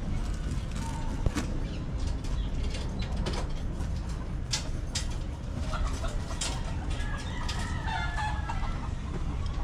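Chickens clucking, with short calls in the second half, over a steady low rumbling background and scattered knocks and clicks, the sharpest about a second in.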